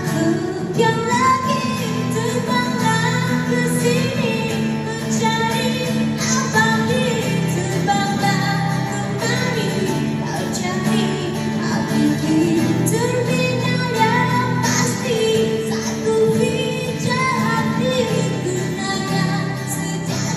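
A busker performing a song: a singing voice over steady instrumental accompaniment.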